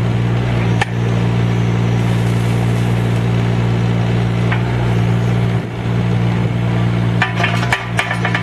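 Yanmar 3TNE68 three-cylinder diesel of an IHI 15NX2 mini excavator running steadily. Near the end comes a quick run of sharp clanks and knocks.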